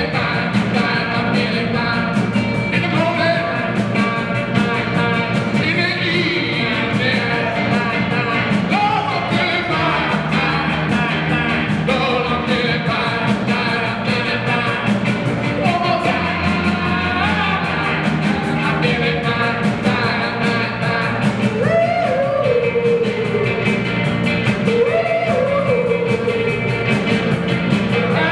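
Rock band playing live: electric guitars and a drum kit, with a sung vocal line most plain in the last few seconds.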